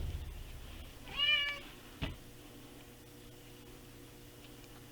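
Domestic cat meowing once, a single drawn-out call about a second in, followed by a short click.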